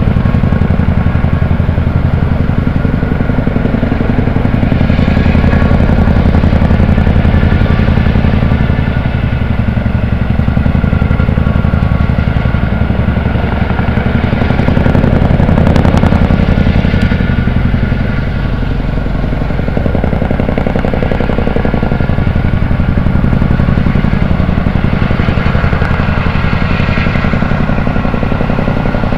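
Loud, steady engine noise with a deep rumble and several steady tones over it, swelling slightly a few times.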